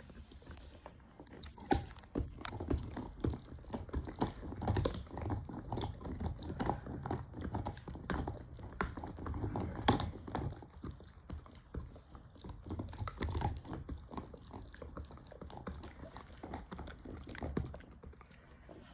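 A dog gnawing a hard synthetic chew bone: irregular clicks, knocks and crunches of teeth on the bone, easing off near the end.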